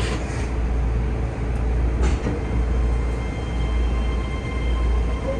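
Keihan 3000-series electric train running at speed, heard from the driver's cab: a steady heavy rumble of wheels on rail with two short clacks, one at the start and one about two seconds in. A steady high whine joins about three seconds in.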